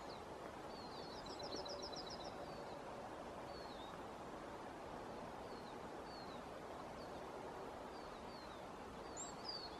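Yellowhammer song: a quick run of about eight repeated high notes about a second in, over a steady faint hiss. Short high chirps come at intervals, with a louder one near the end.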